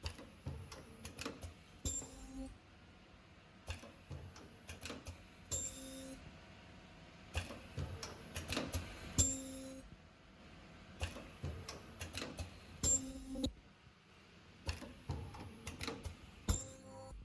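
Automatic zipper bottom-stop welding machine cycling: five welds of about 0.7 s each, roughly every three and a half seconds, each a loud steady buzz with a high whine from the ultrasonic welding horn. Between welds, soft clicks and knocks of the mechanism feeding and positioning the next zipper.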